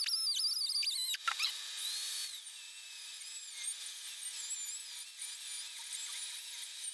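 Angle grinder with a thin cut-off disc cutting through the steel bearing retainer ring on an axle shaft, so the pressed-on retainer can be cracked off. A thin, high whine that wavers in pitch as the disc loads in the cut. It dips briefly a little over a second in and is fainter after about two seconds.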